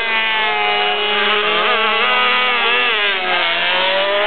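MotoGP racing motorcycle engines running at high revs, the pitch rising and falling with the throttle.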